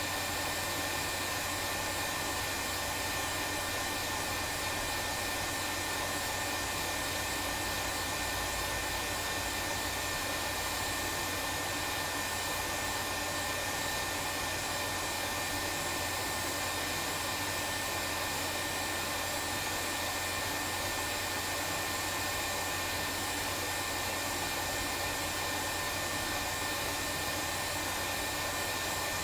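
Hot air rework station blowing steadily, an even hiss with a thin high whine. It is heating a chip on the board so the solder balls under it melt and the chip floats into place.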